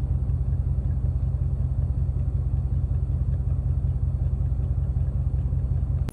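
An engine idling with a steady low rumble, cutting off abruptly at the end.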